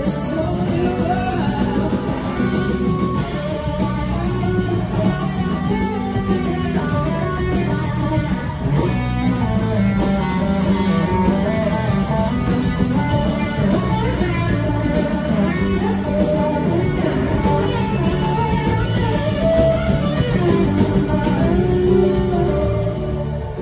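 Live rock band playing an instrumental passage, electric guitars out front over drums and bass.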